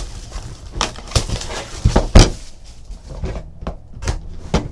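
Clear plastic shrink wrap crinkling and crackling in irregular bursts as it is peeled off a cardboard trading-card box, with a louder thump about two seconds in.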